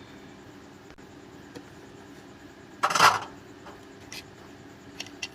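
Small metal repair tools handled on a workbench: a few faint clicks and clinks, with one louder short scraping rustle about three seconds in.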